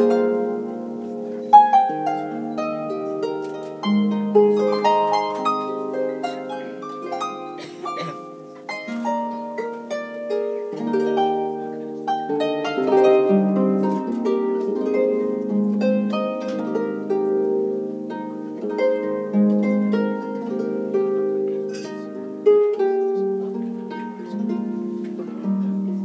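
Solo harp playing a flowing melody of plucked notes and chords, each note ringing on and overlapping the next.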